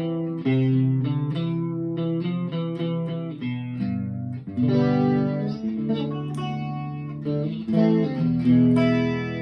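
Electric guitar played through a TC Electronic 3rd Dimension chorus pedal set to button 2. A run of strummed chords rings out one after another with the chorus effect.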